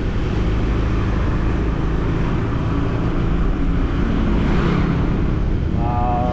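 Steady low rumble and wind noise of a motor vehicle on the move. About four and a half seconds in the hiss swells briefly, and near the end a short pitched sound falls in pitch.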